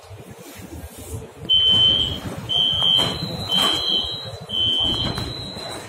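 Metro car door warning beeper sounding four evenly spaced high beeps about a second apart as the doors work. A second, slightly higher tone overlaps the later beeps.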